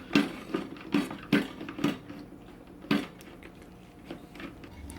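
Hard parts of an AMC Navigenio cooking unit knocking and clicking against each other as its housing is pulled apart. About five sharp knocks in the first three seconds, then quieter handling.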